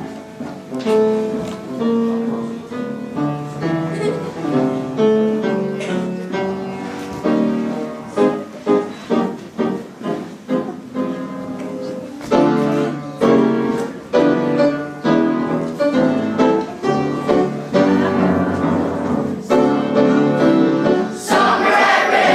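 Music: a piano playing a melody over held chords, with a louder, fuller passage and singing voices coming in near the end.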